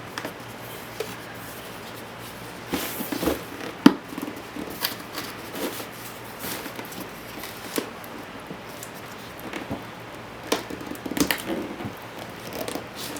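Hands working at stuck product packaging, trying to pull it open and get the contents out: scattered rustles and short clicks, with one sharp snap about four seconds in and a cluster of clicks near the end.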